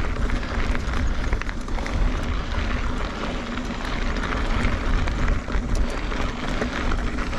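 Riding noise from a 2017 Kona Honzo hardtail mountain bike rolling along a dirt singletrack: wind rumbling on a chest-mounted action camera's microphone, with tyre noise and small clicks and rattles from the bike.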